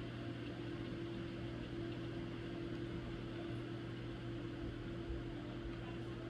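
Steady machine hum, a low drone with a higher constant tone over a soft even hiss, unchanging throughout.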